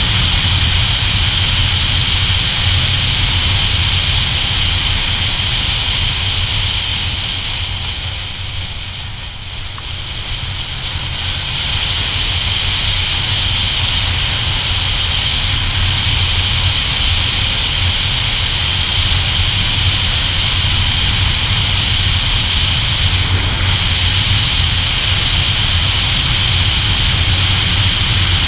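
Motorcycle riding at speed, heard as steady wind rush over the action camera's microphone with the engine's low drone underneath. The noise eases for a couple of seconds about eight seconds in, then builds back up.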